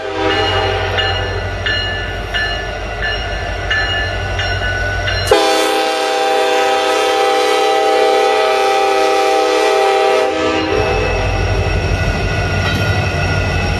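Union Pacific SD70ACe diesel locomotives sounding their multi-note air horn as they pass, with a long, louder blast from about five to ten seconds in, over the low rumble of the engines. In the first few seconds a bell strikes steadily, a little faster than once a second.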